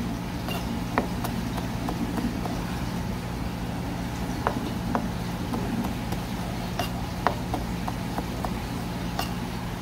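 Sharp knocks of a knife on a cutting board as fish is cut: about ten, irregular, coming closer together near the end, over a steady low hum.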